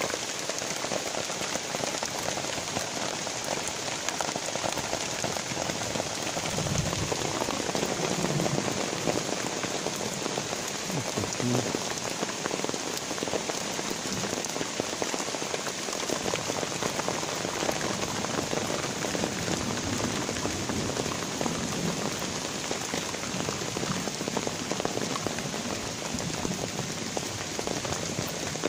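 Rain falling steadily, an even hiss of drops hitting the surfaces around.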